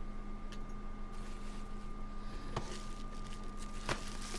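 Quiet room tone with a steady low electrical hum and a few faint clicks, about three, from objects being handled.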